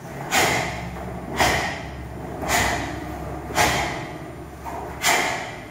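Karate techniques of a Shito-ryu kata: five sharp swishing bursts about a second apart, one per strike or block, from the gi snapping and a forceful exhale, each trailing off in the bare, echoing hall.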